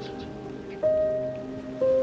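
Slow background music: held chords, with a new chord struck about a second in and another near the end, each fading away after it sounds.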